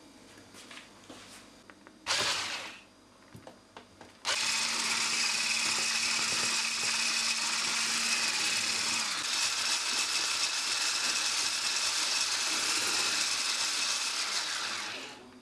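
Electric mixer beating a bowl of soft butter for frosting: a short burst about two seconds in, then the motor runs steadily for about ten seconds and stops near the end.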